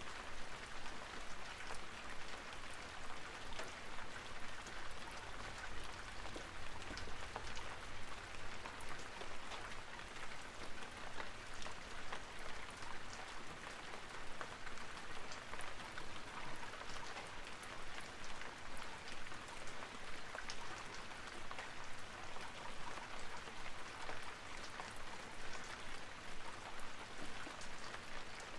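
Steady rain: a dense, even patter of many small drops that never pauses.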